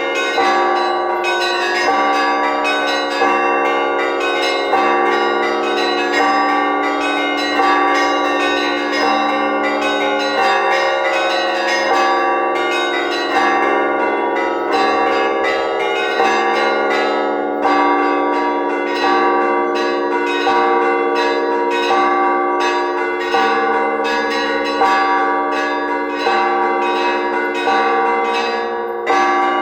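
Festive Orthodox church bell ringing before the Liturgy: a full peal of tower bells, with rapid strokes on the small bells over a regular heavier stroke about every second and a half.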